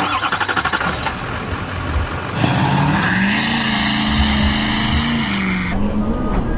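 Motor vehicle engine running: rapid pulsing at first, then about two seconds in it picks up to a steady higher drone that eases off briefly near the end.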